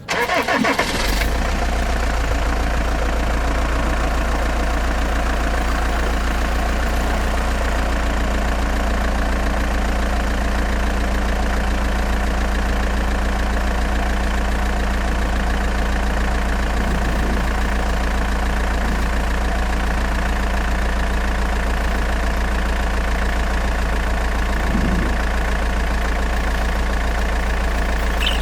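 An engine starts abruptly and then idles steadily, with a strong, even low hum.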